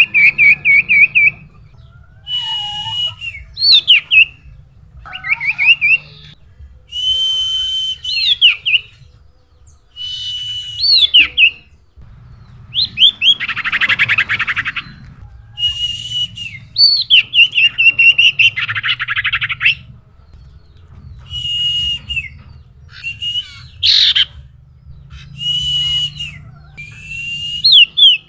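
Common iora (cipoh/sirtu) singing energetically in repeated phrases: level whistled notes with quick up-and-down sweeps. Twice the song breaks into a longer harsh, buzzy chatter.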